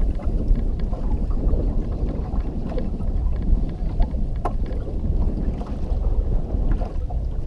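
Wind buffeting the microphone in a steady, gusting rumble, with choppy water against the boat's hull and a few light clicks.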